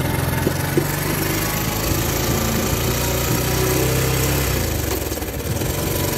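Bajaj CT 100 motorcycle's single-cylinder four-stroke engine running steadily while riding at low speed, with wind rushing over the microphone.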